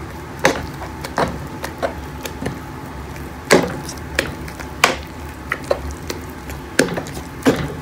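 A wire utensil beating thick mashed potatoes in a metal pot: irregular knocks and clinks of metal against the pot, the loudest about three and a half seconds in, at about five seconds and near the end.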